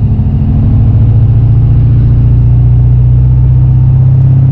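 Vehicle engine running steadily, a loud, deep drone with a fast even pulse and no change in speed.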